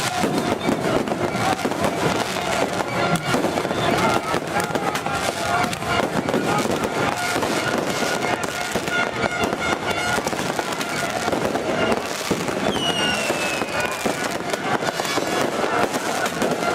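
Fireworks going off continuously in dense, rapid crackling bursts, with a falling whistle about thirteen seconds in. Music and voices are mixed in underneath.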